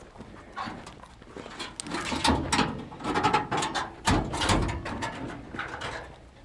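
The hood of a 1952 Studebaker Champion being unlatched and raised: a run of metal clicks and clunks, with a heavier thump about four seconds in.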